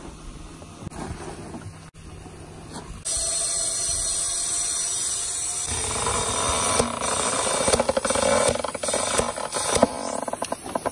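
Air hissing out of an amphibious ATV's balloon tyre through its valve, so that the tyre deflates enough for a rubber track to fit over it. The hiss starts suddenly about three seconds in and stays steady, with clicks and rattles over it in the second half.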